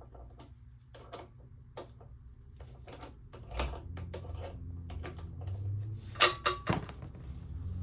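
Ratcheting wrench clicking in short irregular runs as it works a brake line fitting loose. A sharp metallic clink of tool on metal comes about six seconds in.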